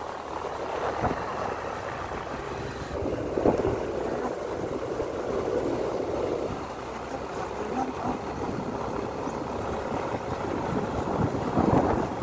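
Steady running and road noise of a moving vehicle, with a few brief louder swells.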